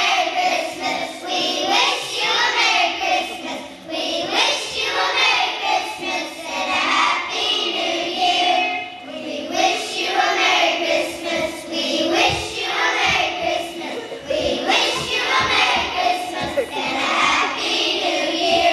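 A choir of young children singing a song together, phrase after phrase.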